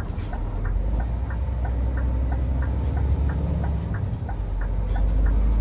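Lorry's turn-signal indicator ticking steadily, about three ticks a second, over the low running of the lorry's diesel engine heard inside the cab.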